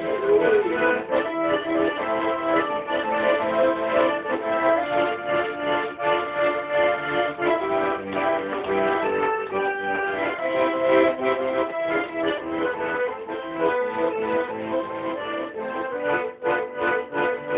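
Garmon (Russian button accordion) playing a tune, melody over sustained chords, with a run of short, clipped chords near the end.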